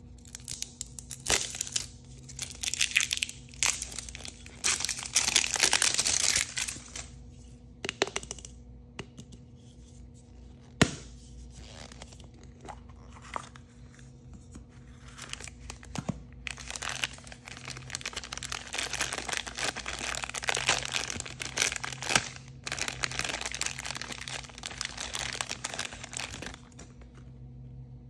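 Plastic packaging being torn and crinkled while unwrapping a plastic toy capsule and the sealed plastic bag inside it, with a few sharp plastic clicks, the loudest about 11 seconds in.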